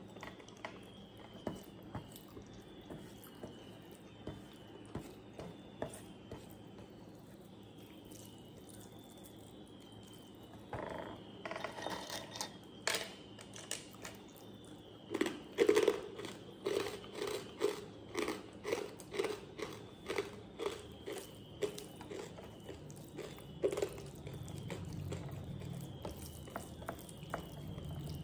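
Close-up chewing and crunching of food, in quick rhythmic bites about two a second from about ten seconds in. Light clicks of fingers against a steel plate as rice is mixed by hand come before.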